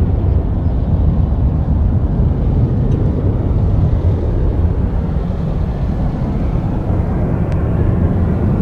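Boeing 737-800 airliner's CFM56-7B jet engines heard from the ground as the plane flies past at a distance: a steady low rumble.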